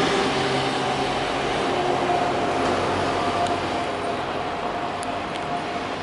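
Steady road traffic noise of trucks, vans and motorcycles passing on a busy multi-lane road, with a continuous engine hum and a faint steady whine.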